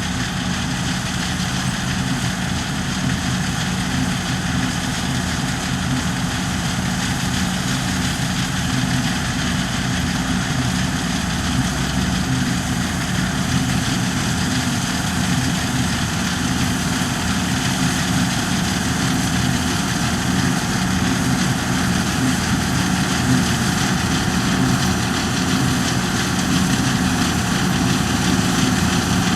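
New Holland Clayson 8060 combine harvester running steadily, a low engine hum under a broad hiss, growing slightly louder.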